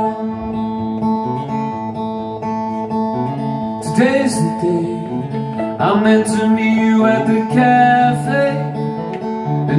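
Music: a wordless instrumental stretch of a song, led by guitar.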